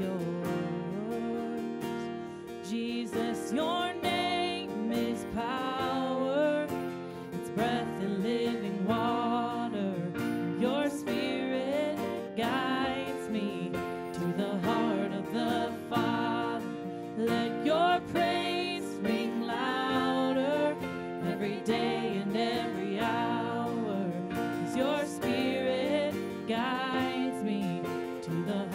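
A worship song played live: acoustic guitar and a Roland stage piano accompany women's voices singing the melody.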